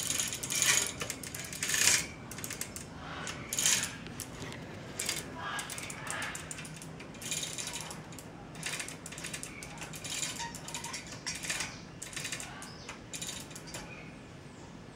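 Chain-driven sprocket ratchet mechanism on a lever-rocked axle clicking irregularly, with its chains rattling, as the lever chain rocks up and down and the armed locking ratchet lets the axle turn only one way, winding up a string to lift a mass. The clicks are loudest in the first few seconds and grow fainter after.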